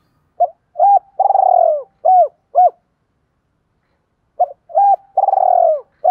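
Spotted dove (cu gáy) singing its territorial cooing song, the call of a decoy bird meant to provoke rivals. The phrase is a short note, a coo, a long rolling coo and then two short coos. It is sung twice, and the second phrase starts about four seconds in.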